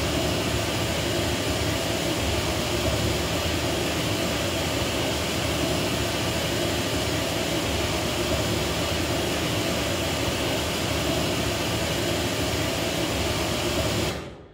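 PA loudspeakers playing a loud, steady broadband test noise as the measurement signal for a Smaart Live acoustic measurement. The noise cuts off suddenly about a second before the end.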